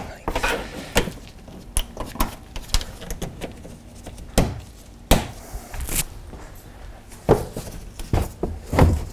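Plastic push-in rivets and trunk trim being pressed back into place by hand: irregular clicks and knocks, with a short rustling scrape about five seconds in.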